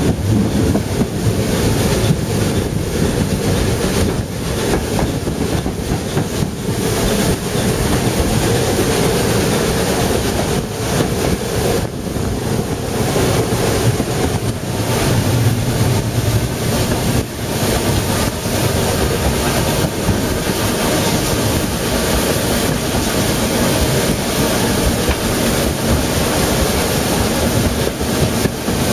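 Narrow-gauge steam train running at speed, heard from a carriage: a steady rush of wheel and running noise mixed with wind buffeting the microphone.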